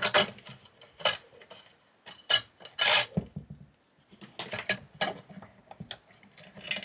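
Metal parts of a high-voltage junction box clinking and clattering as it is taken apart by hand: a string of separate sharp clicks and knocks with short scrapes between them.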